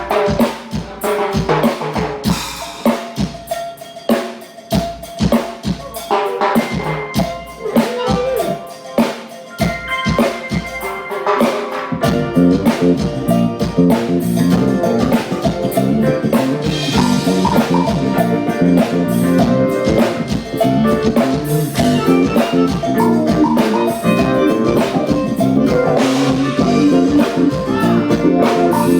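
Rock band soundchecking live: the drum kit plays with snare, bass drum and rimshot hits over some other instruments, then about twelve seconds in the full band comes in with bass, denser and a little louder.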